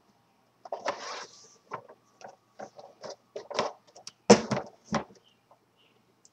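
Cardboard Lego set box being handled: a run of short scrapes and rustles, with a louder knock about four seconds in as the box is moved and set down.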